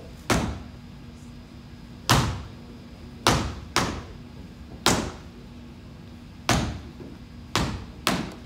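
Step routine's foot stomps on the stage, about eight sharp, heavy hits at an uneven rhythm, each ringing briefly in the hall.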